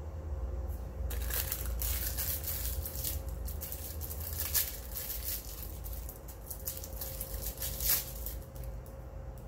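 Something crinkly crumpled and rubbed between gloved hands: irregular crackling that starts about a second in and stops near the end, with two louder crackles, one near the middle and one near the end.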